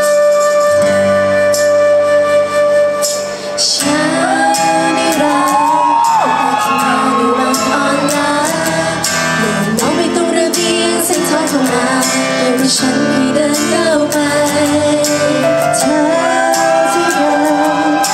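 Thai pop song over a backing track: an instrumental intro with a long held note, then a woman's lead vocal comes in about four seconds in and carries on over the music.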